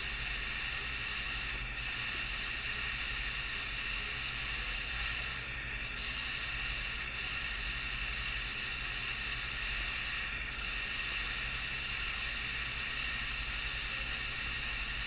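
Steady hiss with a faint low hum underneath and no distinct sounds: the recording's constant background noise.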